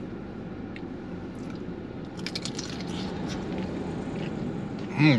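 A man biting into and chewing a jalapeño sausage: crackly, wet clicks from about two seconds in, over a steady background hum. Near the end comes a short, loud voiced sound that falls in pitch.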